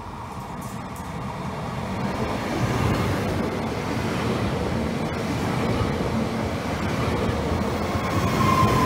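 Two coupled Trenitalia ETR104 'Pop' electric multiple units running in along the platform: a steady rumble of wheels on rail and running gear, growing louder over the first few seconds as the train draws alongside. A short high squeal near the end.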